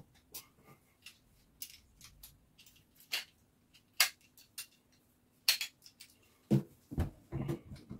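Sparse metallic clicks and clinks, with a few duller knocks near the end, from a mole grip working the fittings of a newly fitted kitchen mixer tap under the sink.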